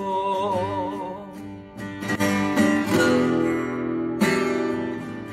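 Acoustic guitar strummed with a sung note held with vibrato over it. The voice fades after about a second, and several strong strums follow from about two seconds in, the chords ringing on.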